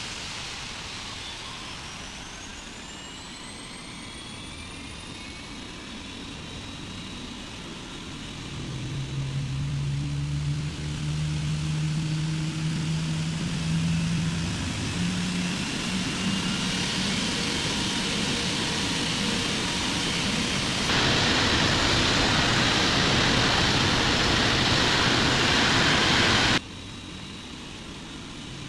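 Boeing 777 turbofan engines starting from cold: a whine rises in pitch over the first several seconds, and a deeper steady hum joins in about a third of the way through. About two-thirds through, a louder rushing noise comes in for several seconds and then cuts off abruptly.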